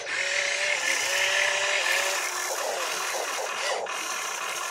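Small electric motors of a radio-controlled excavator whining as it raises its arm and swings toward the dump truck. The whine holds a steady pitch with small steps, fades about two seconds in, then comes back in shorter, wavering spurts.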